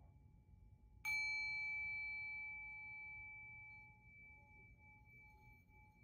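A small metal chime struck once about a second in, ringing clear and high and fading away over about three seconds. A faint steady tone sounds underneath throughout.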